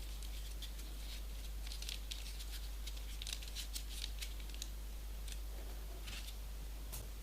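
Light, scattered rustling and clicking of folded paper pieces being handled, over a faint steady low hum.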